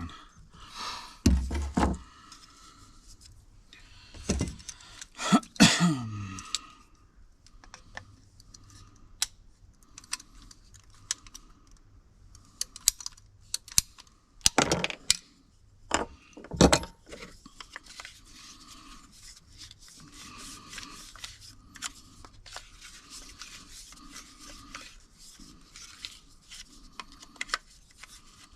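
Scattered clicks, knocks and scrapes of water-line pipe and SharkBite push-fit fittings being handled, with a few louder knocks about 5 s and 15 s in.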